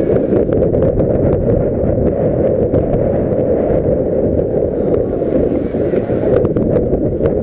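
Wind buffeting the microphone: a loud, steady low rumble, with a few faint clicks near the end.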